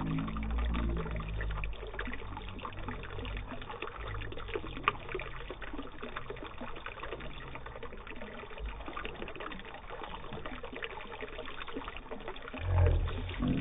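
Water trickling steadily out from under a cup across a small tabletop model of soil and pebbles, a slowly rising simulated river flood. One sharp click about five seconds in.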